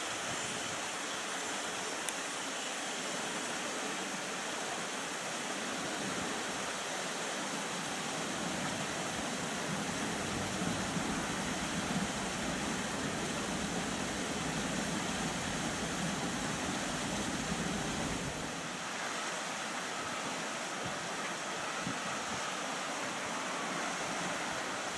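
Steady rushing noise of airliner jet engines at taxi idle across the airfield, with no sharp events and a faint steady whine coming in near the end.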